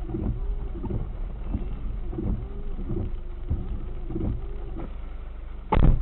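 Low, steady rumble inside a parked car, then just before the end a sudden loud thump against the windshield.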